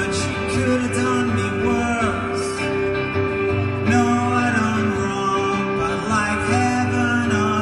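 A man singing a slow song over an electric guitar, with one steady held note droning beneath the vocal melody.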